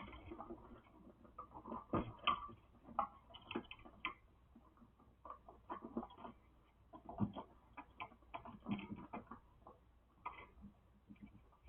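Faint, irregular small clicks and taps of electrical wires and wire connectors being handled and fitted in a wall switch box.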